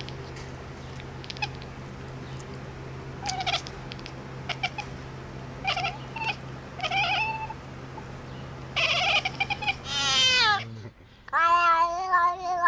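Domestic cat meowing: a run of short meows, then two long drawn-out meows near the end, the first falling in pitch.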